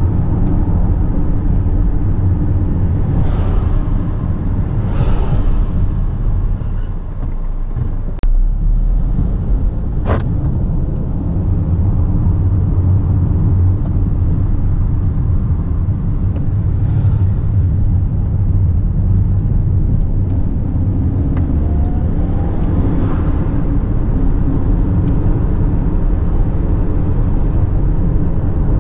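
Car heard from inside the cabin while driving: a steady low rumble of engine and tyre noise. Two sharp clicks come about eight and ten seconds in.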